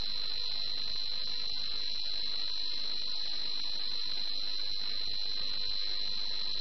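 Air traffic control radio feed between transmissions: steady static hiss with a constant high-pitched whine.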